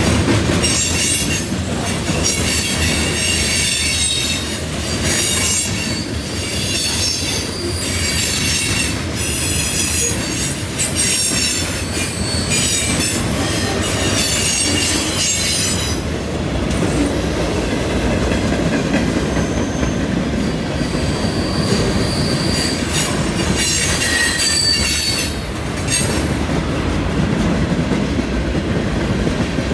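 Freight train cars rolling past close by with a steady heavy rumble and rail clatter, the steel wheels squealing high-pitched through about the first half, then only faintly, as the train rounds the curve.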